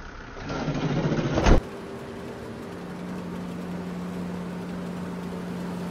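A van's rear doors swing shut and slam with one loud bang about a second and a half in. Then a steady engine hum with a low held tone is heard from inside the closed cargo area.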